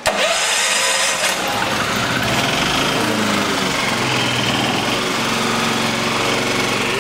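Yamaha EF3000iSEB inverter generator's single-cylinder four-stroke engine running. It comes in suddenly with a loud hiss for about the first second, then settles into a steady run.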